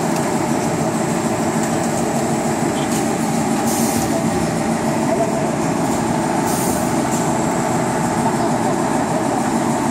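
Film-wrapping packaging machine with a heat-shrink tunnel running: a steady, loud mechanical noise from the tunnel and its roller conveyor. Two brief hisses come about four and six and a half seconds in.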